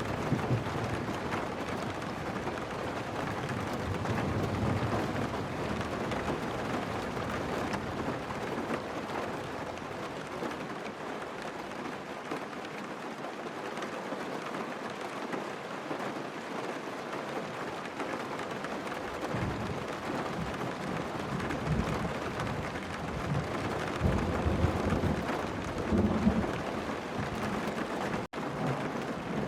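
Steady rain pattering on a car, with low thunder rumbles in the last third. The sound cuts out briefly near the end.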